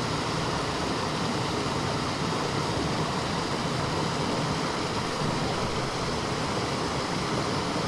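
Steady rush of a stream's running water, an even hiss without breaks.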